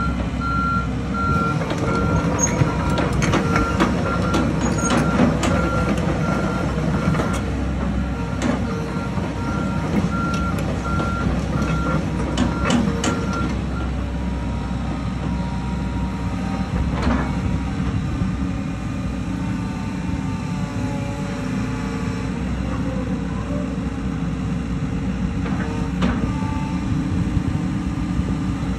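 2016 Komatsu PC138US-10 hydraulic excavator's diesel engine running steadily, with its travel alarm beeping at an even pace for the first half and stopping about halfway through. Knocks and clanks come from the machine while the alarm sounds, and after it stops the engine and hydraulics labour as the boom is raised.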